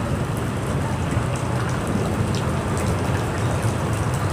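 A steady, even hiss with faint scattered ticks and no voice.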